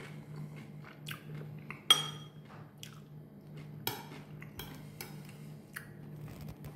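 Metal spoon clinking against a ceramic soup bowl while eating: a sharp ringing clink about two seconds in and another about four seconds in, among softer taps and the chewing of crunchy croutons. A steady low hum runs underneath.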